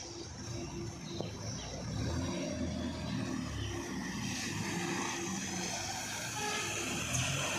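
Trolleybus running along a wet street: a low rumble with a steady hum and tyre hiss on the wet road, growing louder near the end.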